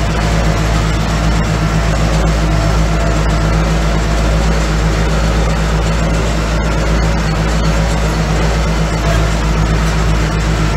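Ursus tractor's diesel engine running steadily under load as it tows a loaded lime trailer across a field.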